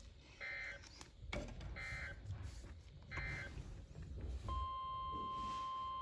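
Emergency alert data signal from a NOAA Weather Radio broadcast: three short, raspy digital bursts about 1.4 seconds apart, the end-of-message code of the warning just read. About 4.5 seconds in, the steady 1050 Hz Weather Radio alert tone starts and holds.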